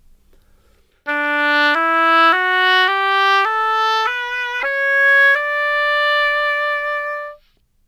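Oboe playing a slurred (legato) rising scale of about eight notes, joined with no tonguing between them. The top note is held for about two seconds before it stops.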